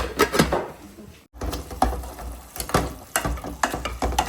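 Metal spoon scraping and knocking against a cooking pot while a curry is stirred, in a run of irregular clicks and scrapes.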